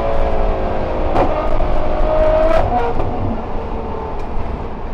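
Ferrari F12 berlinetta's V12 with a Kline Innovation exhaust, heard from inside the cabin, pulling in second gear with its note climbing. About two and a half seconds in there is a sharp crack as it shifts up to third, and the engine then runs on quieter.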